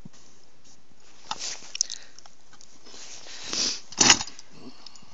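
Two pull-cord yanks on a gas ice auger's recoil starter, the second one louder and ending in a sharp rasp; the engine does not catch.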